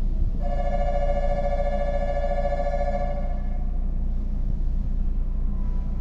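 A railway warning signal, two steady notes sounded together, held for about three seconds and then stopping. Under it runs the steady low hum of the underground station.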